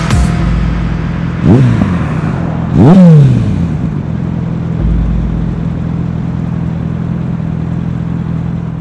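Suzuki Bandit 650S four-cylinder engine revved twice, about a second and a half and three seconds in, the pitch rising sharply then falling each time, the second rev the louder. It then runs steadily.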